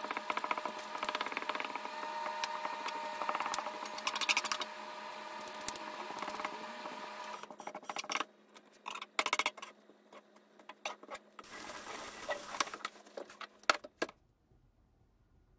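Kitchen knife cutting wakegi (Japanese scallions) on a plastic cutting board: a rapid run of crisp cuts for the first half, then sparser cuts in short bursts. The cuts stop about fourteen seconds in.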